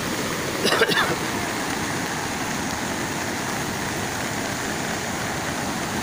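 Rain-swollen mountain river in flood, its muddy water rushing past in a steady, heavy wash of noise.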